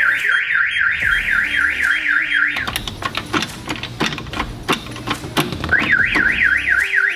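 Compustar car alarm siren sounding after a shock-sensor test, a loud fast up-and-down warble. About two and a half seconds in it switches to a rapid run of clicks and knocks, and near the end the warble comes back.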